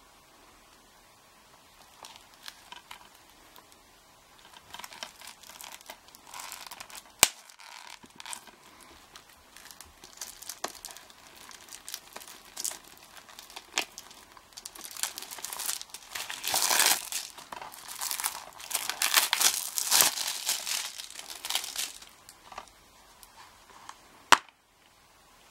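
Plastic shrink-wrap on a DVD case being slit and peeled off by hand, crinkling and tearing, loudest a little past the middle. Two single sharp clicks stand out, the second near the end as the case is pried open.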